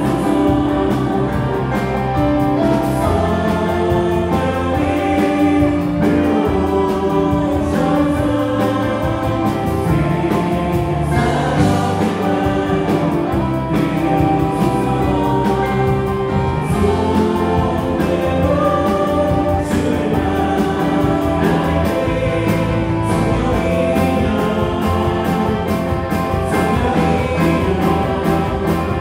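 Live worship band playing a praise song: electric guitar, bass guitar, keyboards and a drum kit, with voices singing together over the band.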